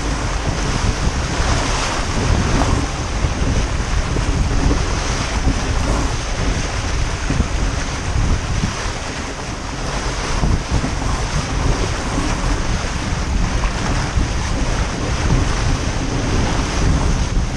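Water rushing and spraying along the hull of an RS400 sailing dinghy sailing fast downwind, with strong wind buffeting the boat-mounted camera's microphone in a steady low rumble.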